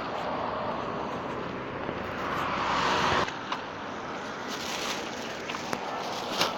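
Street traffic noise that swells into a loud rushing about three seconds in, then cuts off abruptly, followed by lower traffic hum with a few light clicks and one sharp click near the end.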